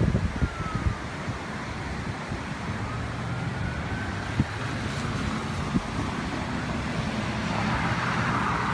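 Steady rushing noise of a creek in flood after heavy rain, growing a little louder near the end, with a motor vehicle's engine running close by from about three seconds in.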